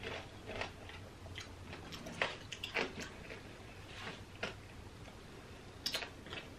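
Close-up chewing of candied strawberries (tanghulu), the hard sugar shell cracking in irregular crisp crunches, with a few louder crunches about two to three seconds in and again near the end.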